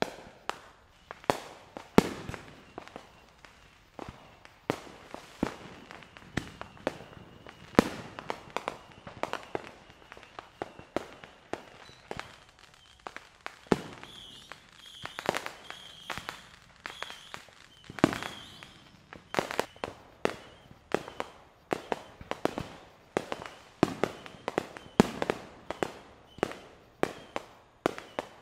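Fireworks going off: a steady series of sharp bangs and pops, several every second, from aerial shells bursting.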